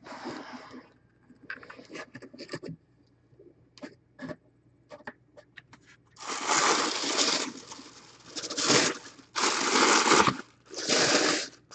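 Packaging being opened by hand: scattered light taps and clicks, then four long bursts of crinkling plastic, each about a second, in the second half.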